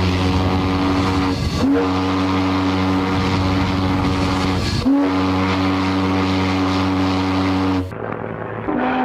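Deep ship's whistle sounding three long blasts of about three seconds each, the first already going at the start, the next two each opening with a short upward swoop in pitch. About a second before the end the whistle stops and a quieter, changing tonal sound takes over.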